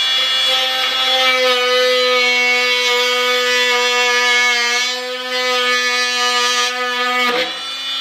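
Dremel Multi-Max MM45 oscillating multi-tool at speed 8 plunge-cutting into wooden door casing: a steady buzz that holds one pitch. About seven seconds in it winds down with falling pitch as the tool is switched off.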